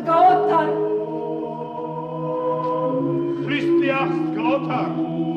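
Choir chanting a slow hymn over a held low drone, with several voices moving above the sustained notes.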